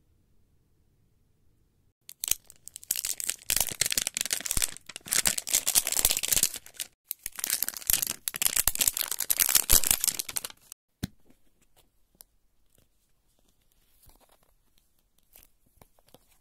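Printed wrapper being torn and crinkled off a Snackles blind-capsule ball by hand: about two seconds in, a dense run of crackling rips starts, goes on for about eight seconds and stops abruptly, followed by a few faint rustles.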